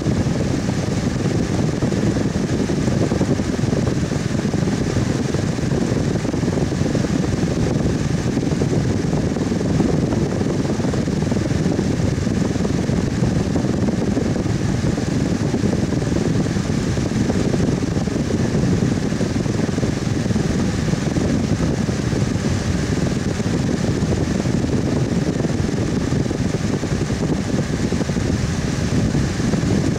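Electric fan running steadily: an even, low whooshing rush of air with a faint steady hum of the motor.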